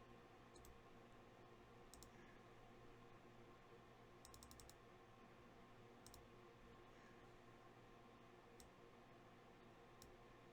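Near silence: room tone with a low hum and a few faint, scattered clicks, including a quick run of about six clicks near the middle.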